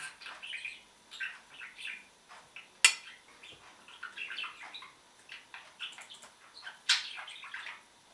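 A metal spoon scooping cake and clinking on a porcelain plate, with two sharp clinks, about three and seven seconds in. Many short high sounds run throughout.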